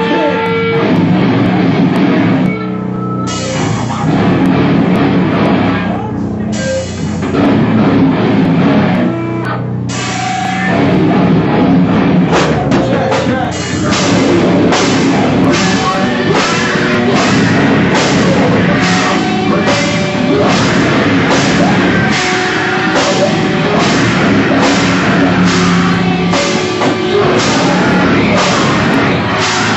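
Live heavy rock band playing loud: electric guitar over a drum kit, with a few brief breaks in the first ten seconds before it settles into a steady, evenly spaced beat.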